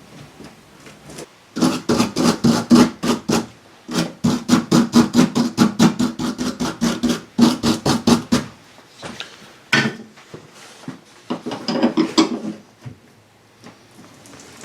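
Hand tool working a fastener on a car body panel, in two long runs of rapid, even clicks of about seven a second, then a few short bursts. The bolt is turning with its nut instead of loosening.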